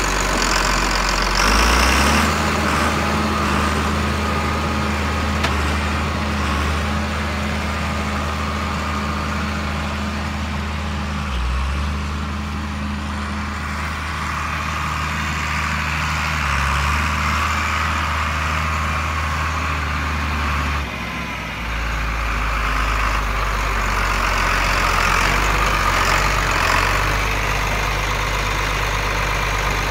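John Deere 4850 tractor's turbocharged six-cylinder diesel engine running as the tractor drives. Its engine speed rises about two seconds in and shifts several more times, most clearly about 21 seconds in.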